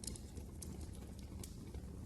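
Wood fire crackling in a fireplace: scattered sharp pops and snaps over a low steady rumble of burning.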